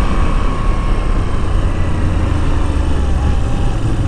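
Moto Guzzi V85 TT's air-cooled transverse V-twin running on the road under a steady rush of wind noise, its note sinking slowly as the bike slows, with a change in the low drone about three seconds in.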